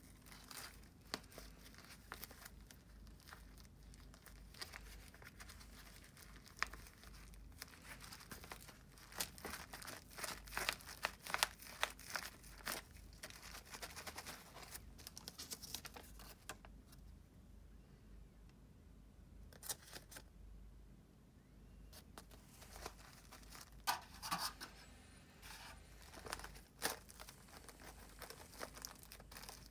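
Paper and wood-shaving wrapping of a kyogi natto package crinkling, rustling and tearing as it is handled and opened. The sound comes in irregular bursts and is busiest about ten seconds in and again near the end.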